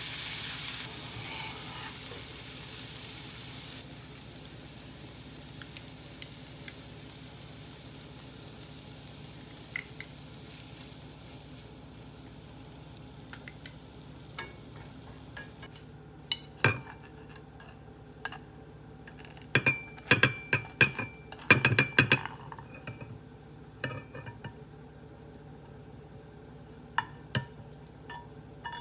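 Shredded chicken frying in a pan, sizzling loudest at first and fading over the first few seconds as sauce goes in. Later, about halfway through, comes a run of sharp clinks and taps of chopsticks against the pan while the food is stirred.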